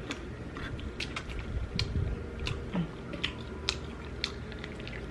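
Close-miked chewing of soft pasta: irregular wet smacking and clicking mouth sounds, a few a second.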